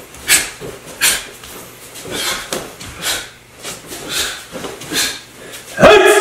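A karate practitioner's short, sharp breaths, forced out with each block and punch of a kata, about one every half second to second. Near the end comes a loud voiced shout, a kiai.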